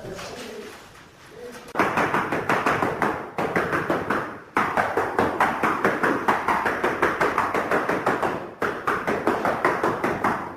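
Quick, steady tapping, about four or five taps a second in runs with short pauses, typical of a tile being tapped down into its mortar bed.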